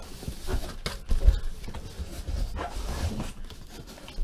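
A large cardboard shipping case being handled and shifted: dull thumps and cardboard scraping, with the loudest thump a little over a second in.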